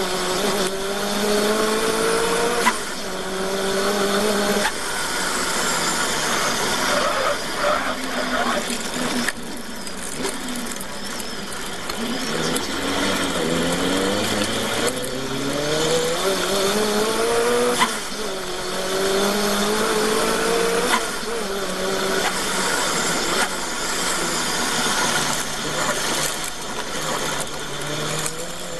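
Supercharged engine of a Sylva Phoenix sprint car at full throttle, heard onboard: the pitch climbs and drops back at gear changes, falls away as the car slows for a tight bend in the middle, then climbs steeply again as it accelerates hard out of it.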